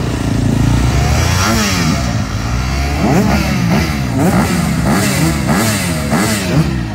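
Enduro motorcycle engine revved in repeated quick throttle blips, its pitch rising and falling about twice a second, over the steady drone of other bikes running.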